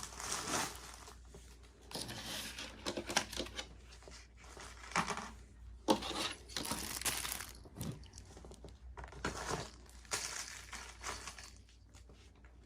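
Plastic packaging or a shopping bag crinkling and rustling as items are moved about by hand, in several irregular bursts.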